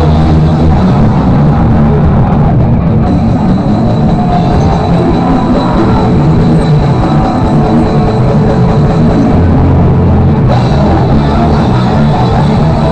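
Live rock band playing loud, with drum kit and electric guitar.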